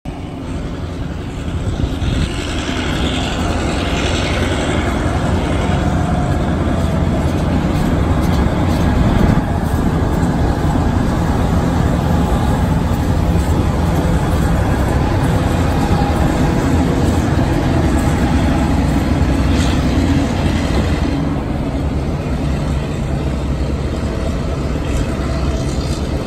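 A steam locomotive and a diesel locomotive hauling passenger carriages pass close by: a loud, steady rumble of engines and wheels. It builds over the first two seconds and eases off after about twenty-one seconds as the carriages roll past.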